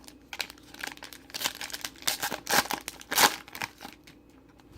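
A trading card pack's wrapper crinkling and tearing as it is ripped open, an irregular run of crackles lasting about three and a half seconds.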